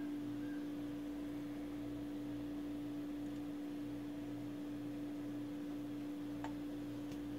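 Steady electrical hum, one low tone, with a faint throbbing beneath it while no music plays; a single faint tick about six and a half seconds in.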